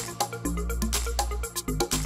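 Background music with a quick, steady drum beat over a bass line and melody; the bass drops out briefly twice.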